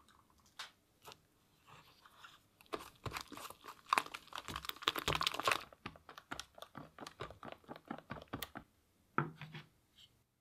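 Hand work on small parts at a bench: a dense run of quick clicks and scraping for about three seconds, then scattered clicks and taps, stopping abruptly near the end.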